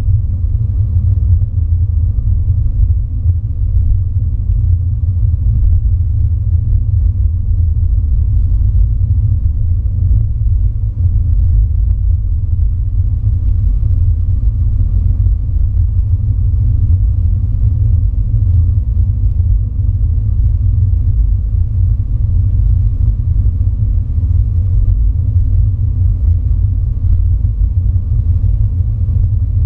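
Steady low rumble of a car driving along a highway, heard from inside the cabin: road and tyre noise with the engine underneath, unchanging.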